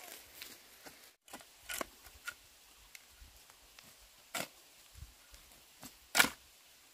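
A handful of short, sharp knocks and clicks at irregular intervals, the loudest about six seconds in.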